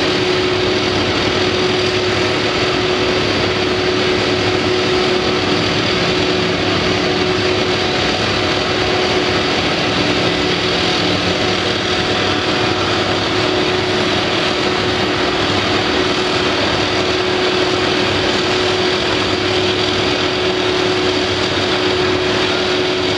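Steady drone of heavy machinery running, with one constant hum held at the same pitch throughout and no revving or knocks.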